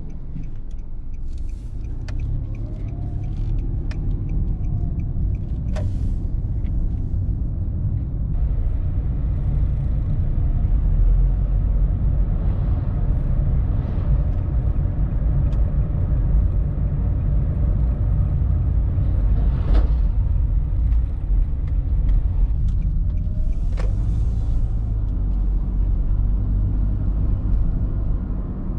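Nissan Note hatchback driving, heard from inside the cabin: a steady low rumble of engine and road noise, growing a little louder after about ten seconds, with a few light clicks.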